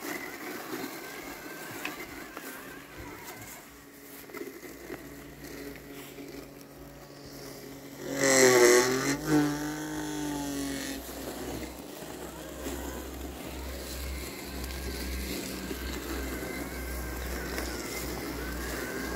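LandXcape 790 battery robot lawn mower running through tall wet grass and weeds, a steady motor hum. About eight seconds in, a loud, brief pitched sound that dips and rises lasts about a second and a half over it.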